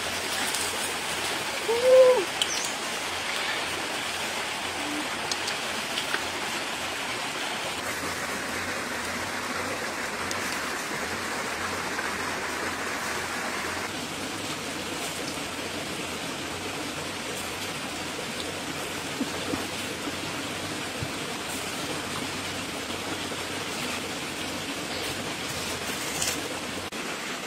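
Steady rushing of flowing water, with one short, loud arching call about two seconds in.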